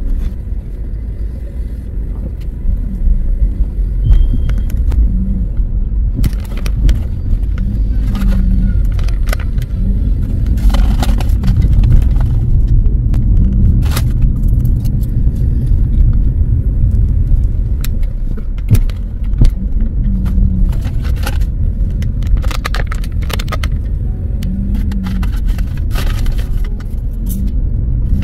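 A car driving along a road: a steady low engine and road rumble with scattered clicks and rattles.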